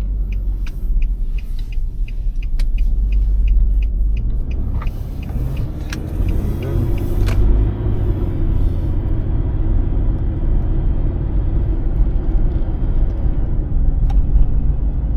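Car engine and road rumble heard from inside the cabin while driving. A regular ticking, about three to four ticks a second, stops about three seconds in, and the rumble then grows louder as the car picks up speed.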